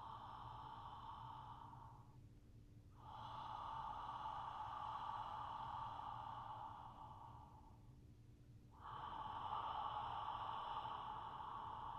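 Slow, audible open-mouth throat breathing, done with the head tilted back: long, even breaths of about four seconds each with short pauses between, one ending about two seconds in, the next from about three to seven seconds, and a third starting about nine seconds in.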